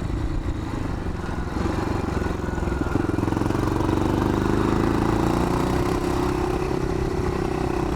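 1981 Yamaha XT500's single-cylinder four-stroke engine running as the bike is ridden, pulling a little harder from about three seconds in and then holding a steady note.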